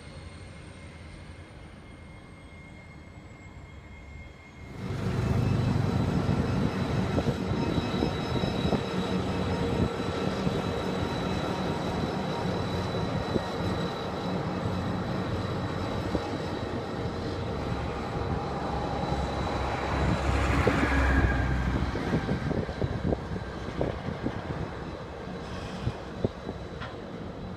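Faint distant hum of a diesel locomotive, cut off about four and a half seconds in by the close, much louder rumble of Pacific National 81 class diesel-electric locomotive 8102. It runs past hauling open steel coil wagons as it slows to a halt, with clanks and knocks from the wagons, and the noise is loudest about two-thirds of the way through.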